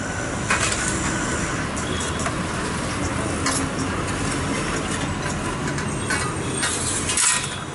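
Metal baking trays and a long iron pushing rod scraping and knocking against the floor of a brick oven as trays of puffs are slid in: several short scrapes and clanks, the loudest near the end, over a steady rumble of street traffic.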